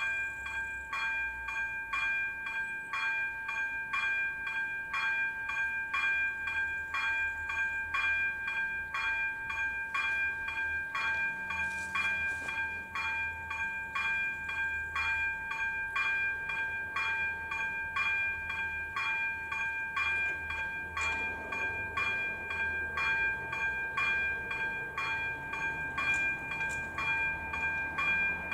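A level-crossing warning signal's ZV-02 electronic bell (AŽD 97 system) ringing steadily at about two strokes a second, each stroke a chime of several fixed pitches: the crossing is activated, warning of an approaching train.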